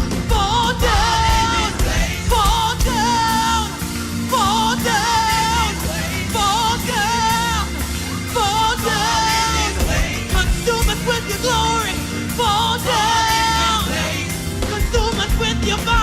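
Live gospel worship music: a singer sings drawn-out phrases with vibrato over a band.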